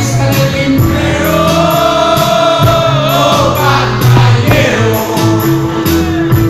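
Live music: a man singing long, slowly wavering held notes into a microphone over a steady low sustained accompaniment, heard through a concert PA.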